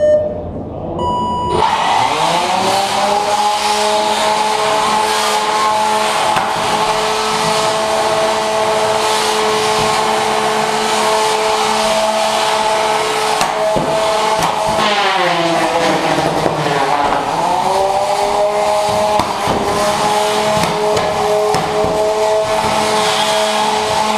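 Weapon motor of a 3 lb combat robot spinning up with a rising whine after a short beep, then holding a steady high whine. About fourteen seconds in it winds down in pitch and spins back up a couple of seconds later.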